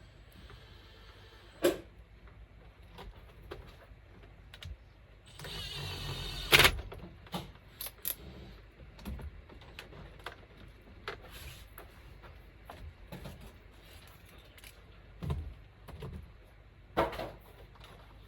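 Scattered knocks and clicks of tools and parts being handled. About five seconds in, a small power tool whirs briefly and ends in a sharp knock.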